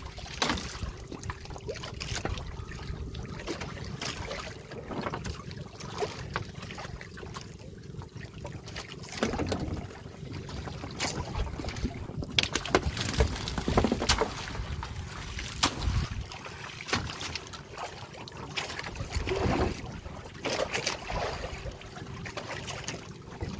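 Wind on the microphone and water on a small boat at sea, with many scattered knocks and clatters and a faint steady hum throughout.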